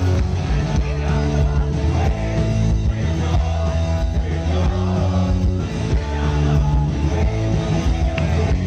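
Live punk rock band playing loud, heard from within the crowd.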